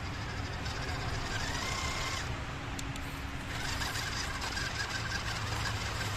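Small electric motor and gearbox of a 1/16 WPL RC truck whining as it is driven, rising in pitch under throttle, easing off briefly near the middle, then picking up again.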